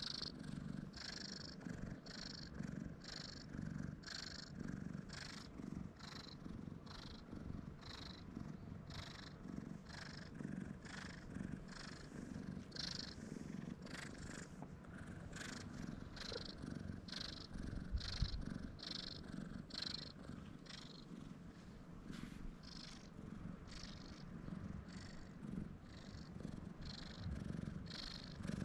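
Brown tabby stray cat purring while it is stroked, the purr swelling and fading in a regular rhythm a little more than once a second. A brief thump about eighteen seconds in.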